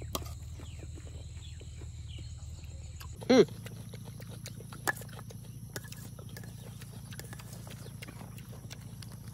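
Eating sounds: a metal spoon clicking against a steel plate a few times over a steady low rumble. About three seconds in there is one short, loud call that falls in pitch.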